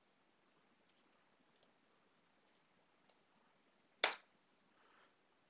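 Clicks from operating a computer while drafting: a few faint clicks, then one sharp click about four seconds in, otherwise almost quiet.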